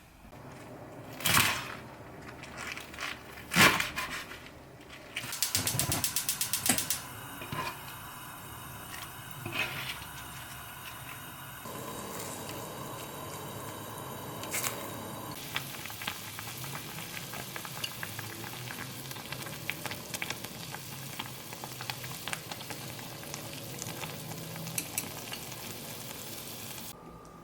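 Food frying in a pan: a steady sizzle with many small crackles that settles in about twelve seconds in and runs until just before the end. Before it come a few sharp knocks of kitchenware and a quick run of clicks.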